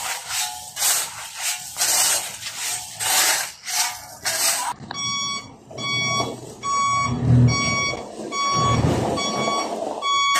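Shovels scraping through gravel about twice a second, then, from about halfway through, a ten-wheeler dump truck's reversing alarm beeping steadily, nearly two beeps a second, with the truck's engine running underneath.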